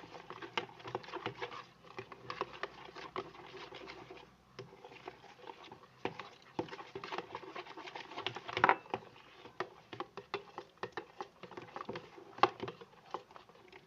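Spoon stirring a glue and borax-water slime mix in a bowl: a run of irregular clicks and scrapes of the spoon against the bowl, with a louder knock just past halfway and another near the end.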